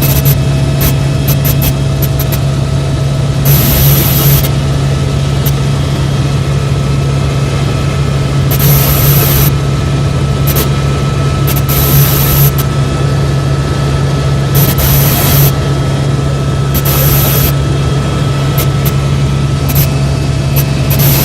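Helicopter in flight: a steady, loud drone of turbine and rotor with a strong low hum and a few steady higher whines, with brief bursts of hiss every few seconds.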